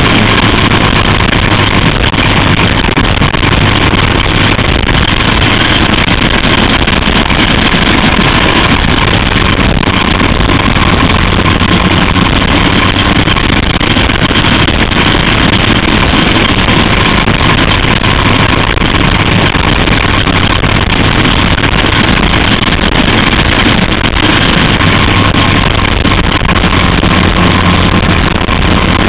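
Small caged oval race car's engine running at a steady high speed on track, heard from an onboard camera with wind and road noise. The note holds loud and even, with no big rises or falls in pitch.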